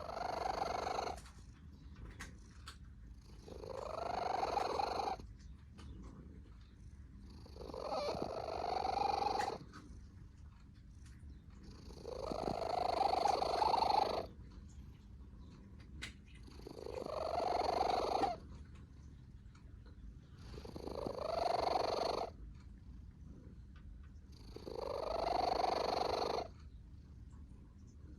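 A sleeping cat snoring: a long snore about every four seconds, each one swelling in loudness over a second or two and then cutting off sharply.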